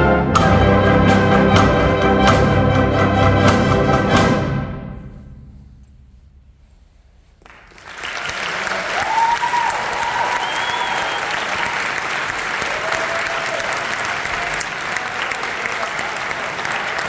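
A symphonic concert band plays a loud final passage with a string of sharp accented hits, and its last chord rings off and dies away about five seconds in. After a brief silence, the audience breaks into steady applause with a few cheers.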